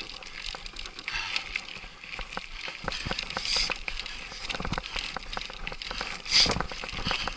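Trek Superfly mountain bike rattling down a rocky trail: tyres crunching over stones with frequent sharp knocks and clatter from the bike, over a steady hiss. The clatter gets rougher and louder about three and a half seconds in and again near the end.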